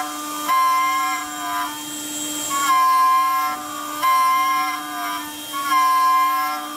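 5-axis CNC router spindle milling a metal block with an end mill. A steady spindle whine runs beneath a high-pitched cutting squeal that swells and fades with each pass of the tool, roughly every one to two seconds.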